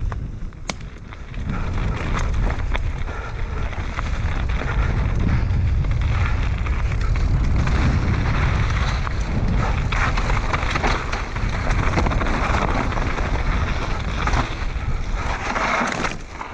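Mountain bike riding fast down a loose dirt and gravel trail, with wind buffeting the bike-mounted microphone and many short clicks and rattles from stones under the tyres and the bike.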